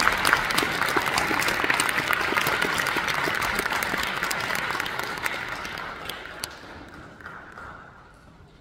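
Audience applauding, the clapping thinning out and dying away over the last few seconds.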